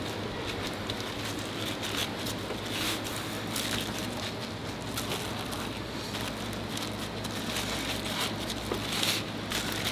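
Steady kitchen background noise with a low hum, and light rustling and tapping from plastic-gloved hands rolling gimbap in a bamboo mat.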